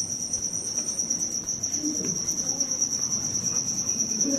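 A cricket trilling in one continuous, steady high-pitched note.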